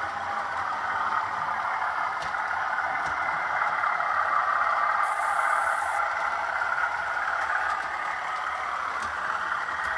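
OO gauge model train running on the layout's track: a steady whirr of the small electric motor and wheels rolling on the rails, with a few light clicks.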